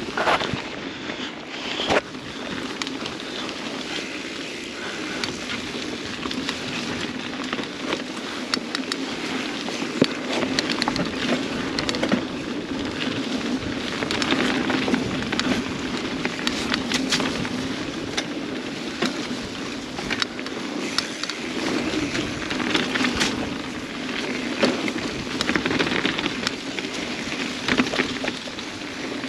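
Mountain bike riding downhill on a dirt and gravel trail: tyres crunching and crackling over the surface, with a steady stream of rattles, clicks and knocks from the bike over rough ground.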